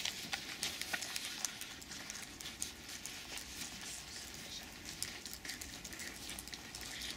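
Scattered light clicks and taps from students working at desks, pencils on paper and small desk objects, with no clear rhythm.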